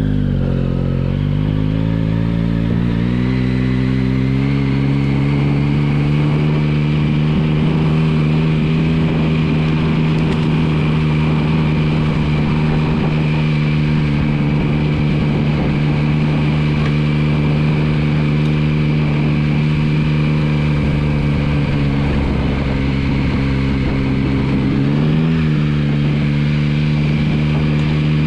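2023 Yamaha MT-09's 889 cc inline three-cylinder engine pulling away, its revs climbing over the first few seconds, then running at a steady low speed in gear. Near the end the revs rise and fall briefly.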